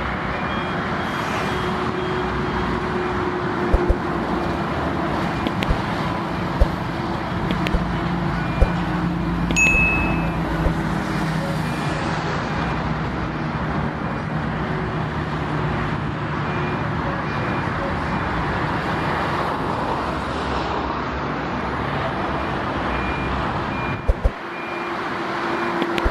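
Heavy highway traffic of trucks, buses and cars passing in a steady stream of tyre and engine noise. A low engine drone swells and fades through the middle, with a few sharp knocks and a short high beep about ten seconds in.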